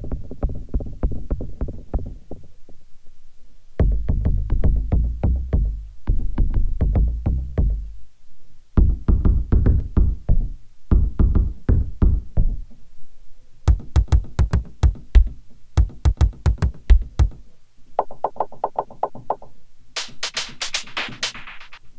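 Electronic kick drum patches from the Ancestry library for Spectrasonics Omnisphere 2, played as short runs of rapid repeated deep hits with brief gaps between them as the patch changes. Near the end the hits turn higher and brighter as a lighter pop percussion patch takes over.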